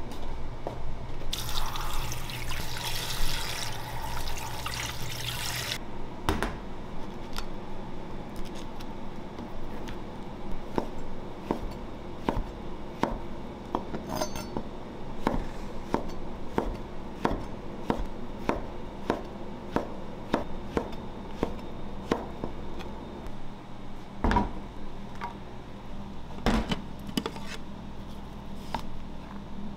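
Running water for about four seconds, then a knife slicing mushrooms on a plastic cutting board in steady strokes, roughly two a second. Two louder knocks come about three-quarters of the way through.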